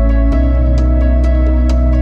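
Background music: sustained synth-like chords over a deep bass, with a light, steady ticking beat; the chord changes shortly after the start.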